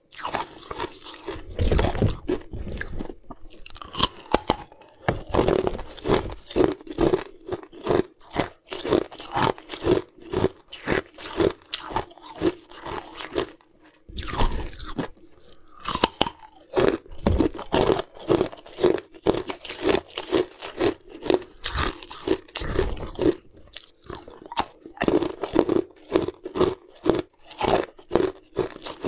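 Ice chunks crunched and chewed close to the microphone: a quick, even run of crisp crunches, about two a second, with a brief lull about halfway through before the crunching starts again.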